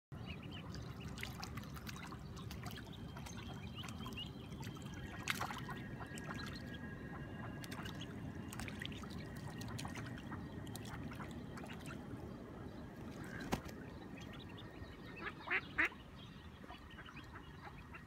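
Mallard ducklings peeping in many short, high calls over a steady trickle of water, with a few louder calls near the end.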